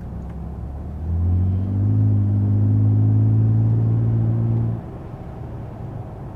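Toyota Tundra twin-turbo V6 through an aFe Vulcan stainless cat-back exhaust, heard from inside the cab during light low-RPM acceleration. A low exhaust hum swells about a second in, holds steady, and drops away suddenly just before five seconds.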